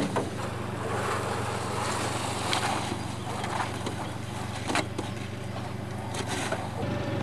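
Fishing net being paid out over the side of a metal boat: water noise and a few sharp knocks of the net's floats and weights against the hull, over a steady low hum. Near the end a steady higher tone joins in.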